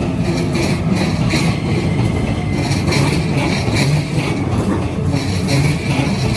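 Keikyu Line train running past at a level crossing, a steady loud rumble, with the crossing's warning bell clanging about twice a second over it.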